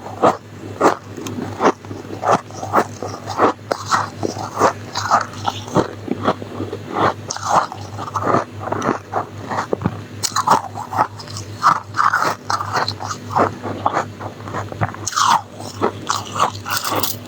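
A person biting and chewing soft, frosty freezer ice at close range: a steady run of crisp crunches, about two a second.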